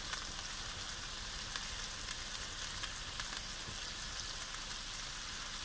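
Lobster tail pieces in their shells frying in butter with shallots and garlic in a sauté pan: a steady sizzling hiss with scattered small crackles.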